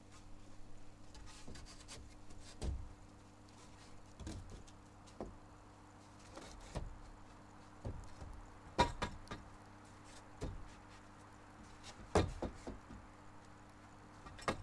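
Scattered knocks, bumps and clicks of things being handled, over a steady low hum. The two loudest knocks come about nine and twelve seconds in.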